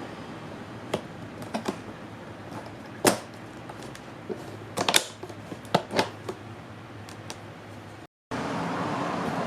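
Light clicks and knocks of small hard parts being handled during work on a suitcase's TSA lock, scattered and irregular, loudest about three seconds in and around five seconds. Near the end the sound cuts out for a moment and a steady hiss follows.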